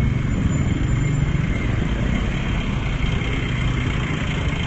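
Road traffic: engines of passing motor vehicles running, a steady low rumble.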